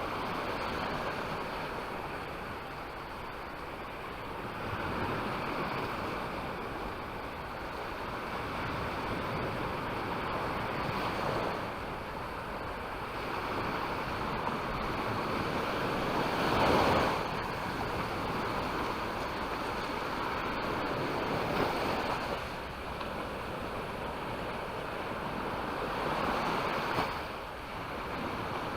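Waves breaking and washing up a beach, a steady rush that swells every few seconds, the loudest about halfway through, with wind on the microphone.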